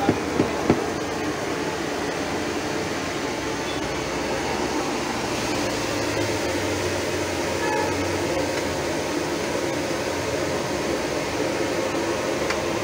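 Steady whirring background hum with a faint hiss, with a few light clicks in the first second.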